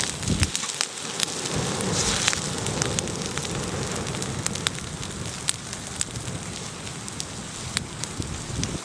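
Open wood fire crackling over a steady hiss, with sharp pops scattered throughout.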